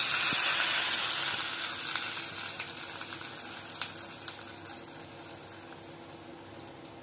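Hot oil poured from a wok onto a paste of ground dalle chilli, timur and salt, sizzling loudly at first and then dying down steadily as the oil cools on the paste.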